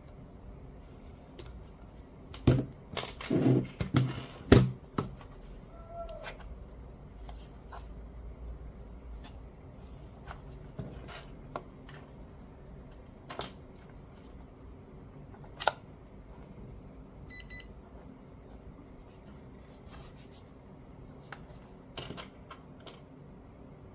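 Hands handling a small plastic label maker and a paper label sticker: scattered clicks, taps and rustles, with a cluster of louder knocks a few seconds in. A very short high beep sounds once, about two-thirds of the way through.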